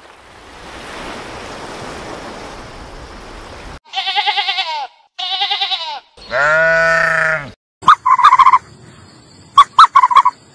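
A steady rushing noise for about four seconds, then sheep bleating: two quavering bleats, one long deeper bleat, and a few short, sharp calls near the end.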